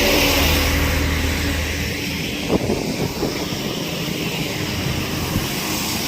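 Steady background noise of vehicle traffic, with a low engine hum that fades out about two seconds in and a single knock shortly after.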